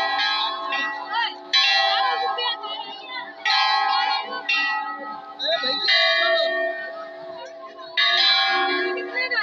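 Temple bell struck again and again, about every two seconds, five strokes in all. Each stroke rings out sharply and fades before the next.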